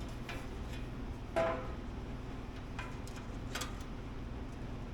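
A single light metallic clank with a short ring about a second and a half in, as a steel filler plate is knocked into place for a trial fit, with a few faint taps around it.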